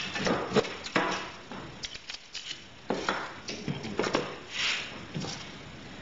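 Deburring blade of a tubing cutter scraping the inside edge of freshly cut copper tubing, in short irregular scrapes and clicks of metal on metal. The burr is being taken off the cut end so the joint can be cleaned and soldered.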